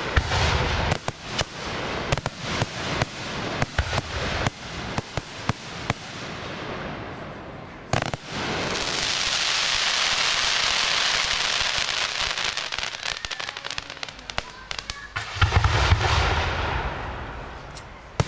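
Professional fireworks display: a rapid string of sharp bangs for the first several seconds, then one loud bang about eight seconds in followed by a long sizzling hiss as a large gold burst trails down. Near the end come deep booms of shell bursts with scattered cracks.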